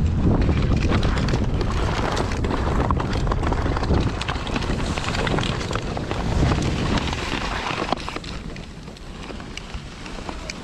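Wind buffeting the microphone and sled runners scraping over the snowy track during a fast sled ride downhill, with scattered small clicks and rattles. The rushing dies down about eight seconds in.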